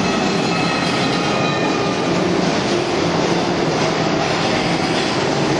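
Steady, loud rumble and rattle of a subway-style ride train moving through a dark tunnel on the Earthquake: The Big One attraction. A faint high squeal sounds over it for the first couple of seconds.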